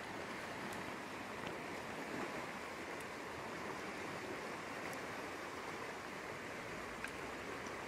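Steady rushing of a fast river current running over a shallow rapid, with a few faint ticks.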